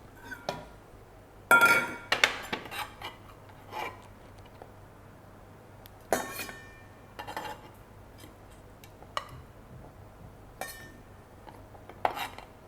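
Dishes and kitchen utensils clinking and knocking as they are handled and set down: scattered strikes that ring briefly, the loudest about a second and a half in, more around six and twelve seconds in.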